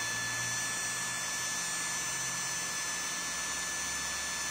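A 775-size brushed 12 V DC motor running unloaded on a bench power supply: a steady electric whine and hum. Its low hum drops lower in pitch about halfway through.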